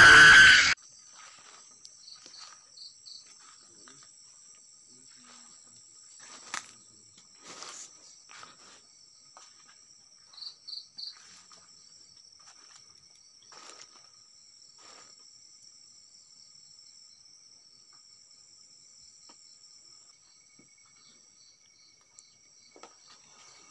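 Music cuts off within the first second, leaving crickets and other night insects trilling steadily in two high tones, with short bursts of chirps. Scattered rustles and crunches of footsteps on dry leaves.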